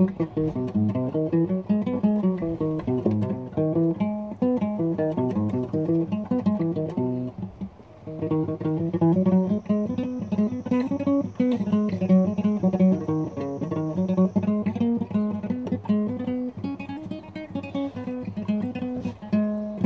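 Acoustic guitar played solo, individual notes picked in quick succession over bass notes, with a short dip in level about eight seconds in.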